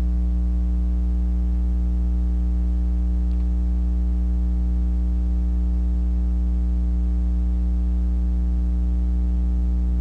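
Steady electrical mains hum with a stack of overtones and a faint hiss, unchanging throughout.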